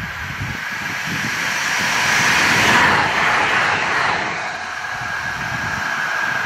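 Aarhus Light Rail Stadler Tango tram-train passing at about 100 km/h. A rushing noise of wheels on rail and air swells as it approaches, peaks as it goes by about three seconds in, then fades.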